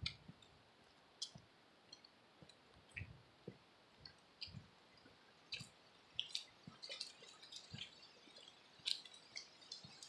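Near silence broken by faint, scattered ticks and soft, irregular low thuds: footsteps on a leaf-covered road.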